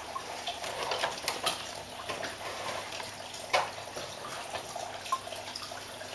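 Steady trickle of running water from a vivarium's filter-fed waterfall, with a few faint knocks.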